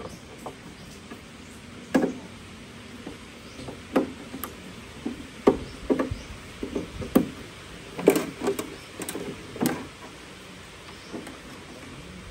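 Audio cables handled and plugged into a Yamaha MG16XU mixing console in a wooden case: irregular clicks and knocks of plugs going into sockets and cables bumping the case, about a dozen scattered through, the loudest about eight seconds in.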